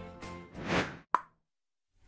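Background music tailing off, then an edited-in whoosh that swells and fades, followed by a single short pop just after a second in.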